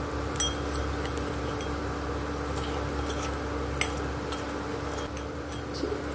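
Steel spoon stirring a wet spice-and-onion mixture in a metal bowl, with a few sharp clinks of spoon on bowl over a steady background hum.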